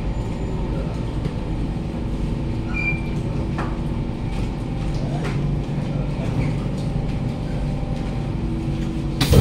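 Interior of a stationary Siemens C651 metro train at a platform: a steady low hum and rumble from the train's onboard equipment, with a few faint clicks. Near the end comes a sudden loud burst of hissing air.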